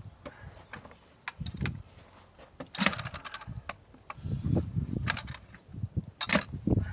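Irregular clinks and dull thumps of things being handled, with a quick rattling cluster of metallic clinks about three seconds in.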